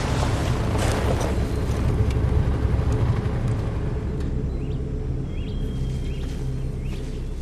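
Quad bike (ATV) engines running with a steady low drone, with a rushing swell in the first second or so. Short rising bird chirps repeat through the second half.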